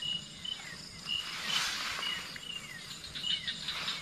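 Night insects chirping: short high-pitched chirps repeating about twice a second, with a brief rushing noise about a second in.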